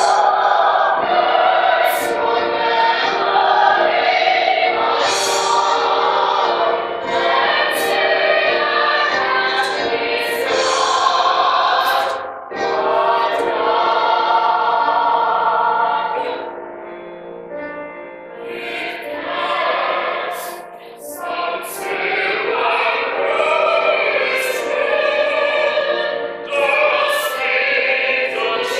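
Musical theatre cast singing together as a chorus of men's and women's voices over accompaniment; the sound softens for a few seconds about two-thirds of the way through, then builds again.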